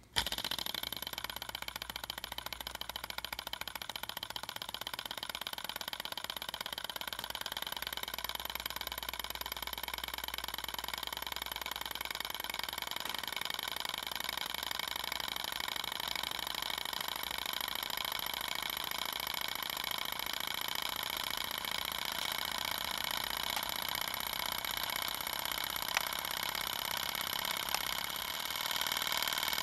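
Small glass-cylinder beta Stirling engine with a free glass displacer, running fast with a rapid rattling knock. The knocking comes from the glass displacer striking the thin, non-Pyrex glass cylinder wall. The sound starts abruptly, then climbs to around 1200 RPM and gets louder near the end.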